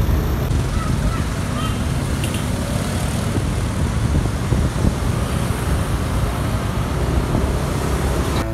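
Bus terminal traffic: a steady low rumble of vehicle engines with road noise.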